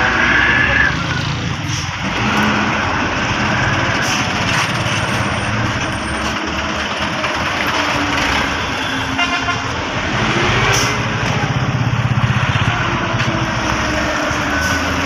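Heavy traffic of trucks and cars crawling past at close range: diesel engines running with road noise, one swelling louder about twelve seconds in, and a vehicle horn sounding.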